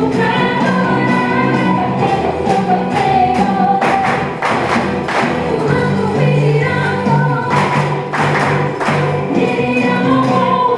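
A group of voices singing a song together over instrumental accompaniment with percussion hits.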